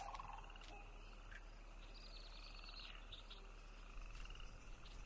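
Sandhill cranes giving their rolling, rattling territorial calls, several calls overlapping and faint.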